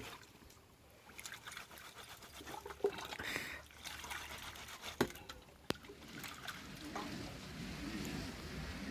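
Liquid trickling and pouring, with a few sharp knocks.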